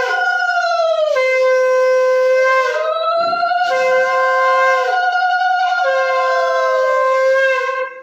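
Two conch shells (shankha) blown together in long held blasts. Each holds a steady note, with short breaks and slight dips in pitch, and both stop just before the end.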